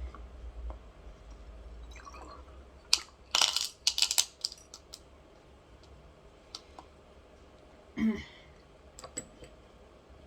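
Small bottles and caps being handled. A quick flurry of sharp clicks and taps comes about three to four seconds in, then a brief low sound, then a few more clicks near the end.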